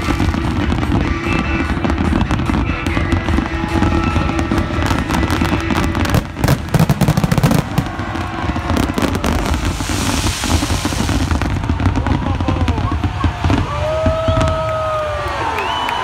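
Fireworks finale: a rapid, continuous barrage of bangs and crackling from many shells and rockets, heaviest about six to eight seconds in, over loud show music. Near the end the barrage thins and a crowd starts cheering.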